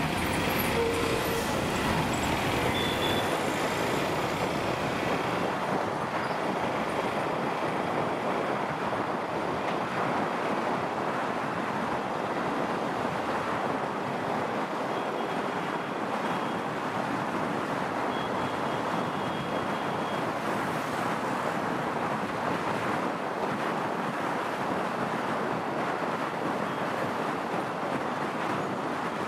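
Steady rush of wind and road noise from a motorcycle riding at speed on a highway, with wind blowing across the microphone.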